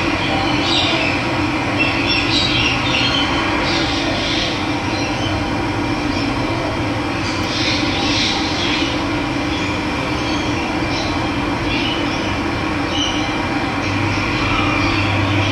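Running water flowing steadily, with birds chirping now and then over it.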